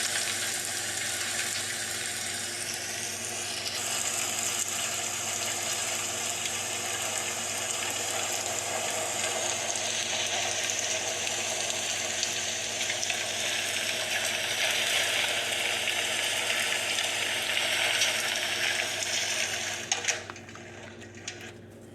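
Steady hiss that cuts off about twenty seconds in, followed by a few clicks.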